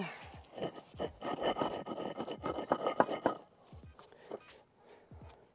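Concrete pavers and crushed-rock paver base being scraped and shuffled by hand: gritty rubbing and scraping with many small knocks, busiest over the first three seconds, then quieter with a few scattered knocks.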